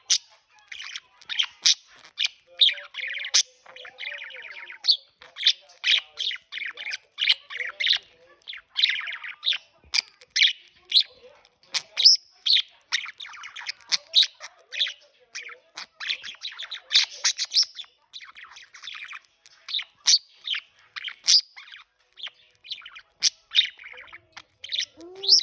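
Budgerigar chirping and chattering: a continuous run of short, high chirps, several a second, mixed with warbling stretches.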